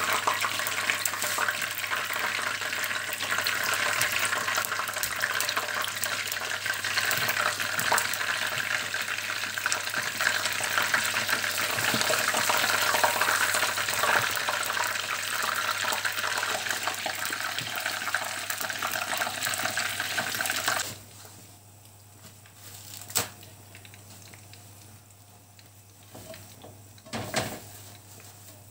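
Belyashi, meat-filled yeast-dough pies, sizzling and crackling as they deep-fry in hot vegetable oil in a pan. About twenty seconds in, the sizzle drops to a much quieter hiss, and two light knocks come near the end.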